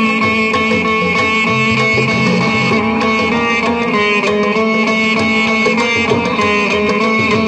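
Saraswati veena playing a Carnatic melody, with mridangam and ghatam beating out a steady rhythm beneath it.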